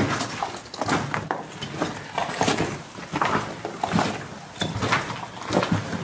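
Footsteps crunching and scuffing over broken rubble on a floor, a steady run of irregular crackles and knocks.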